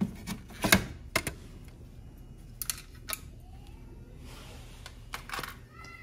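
Several sharp plastic clicks and knocks, spaced irregularly, from a boiler control board being unclipped from its mounting tabs and handled.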